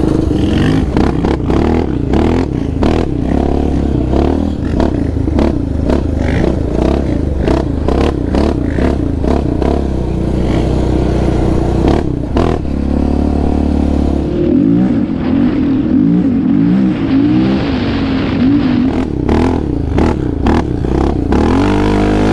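Yamaha Raptor 700R sport quad's single-cylinder four-stroke engine revving up and down through the gears on a dirt trail, easing to lower revs for a few seconds past the middle. Frequent short knocks and rattles ride over the engine.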